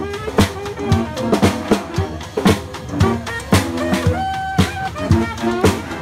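Street brass band of saxophones and other horns playing a tune over a steady beat on bass and snare drums.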